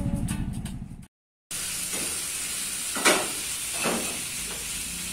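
Music fades out and cuts off. Then comes a steady sizzling of food frying in a pan, with a sharp clatter about three seconds in and a softer knock just under a second later.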